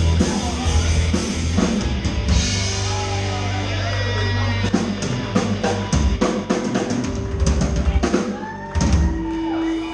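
Live rock band playing: a drum kit with bass drum and snare, along with electric guitars.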